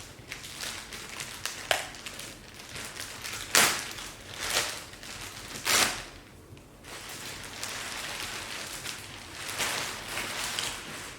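Packaging crinkling and rustling as it is handled, with irregular crackles and a few sharper, louder crinkles.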